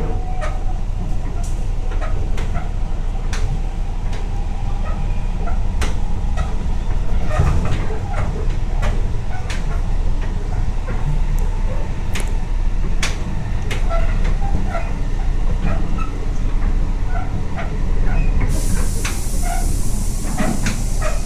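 Tobu 8000-series electric train in motion: a steady low rumble of the running gear with frequent clicks, creaks and short squeaks from the connection between cars. A higher hiss joins near the end.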